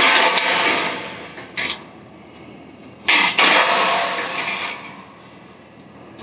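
Two bursts of mechanical tool noise under a pickup truck, each about a second long and roughly three seconds apart, with a single click between them.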